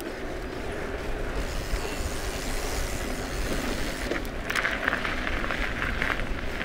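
Mountain bike riding fast, heard from a camera on the bike: wind rushing over the microphone and knobby tyres rolling on tarmac, turning into a louder gritty crunch of tyres on gravel about four and a half seconds in.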